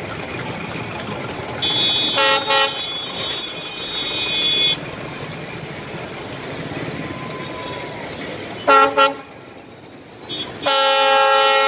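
Diesel locomotive horn sounding as the train approaches: a short blast about two seconds in, two quick short blasts near nine seconds, then a long loud blast starting near the end, over steady background noise.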